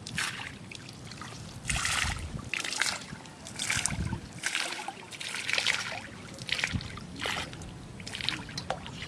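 A plate being dipped and swished in shallow canal water, making a dozen or so irregular splashes and pours as the fish bait is rinsed off it into the water.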